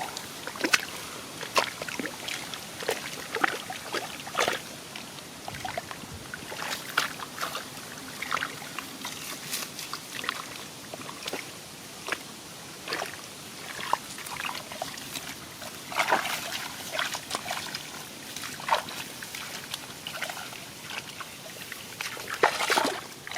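Irregular splashing and sloshing of shallow water, many short splashes at uneven intervals, from wading and grabbing by hand in a flooded rice field.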